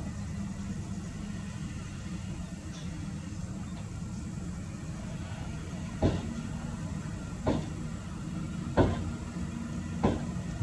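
Nissan Diesel dump truck's diesel engine running steadily as the tipped bed is lowered, with four sharp knocks from the truck about a second or so apart in the second half.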